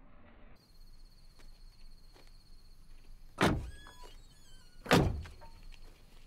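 Two vehicle doors slamming shut, about a second and a half apart, each a heavy thud.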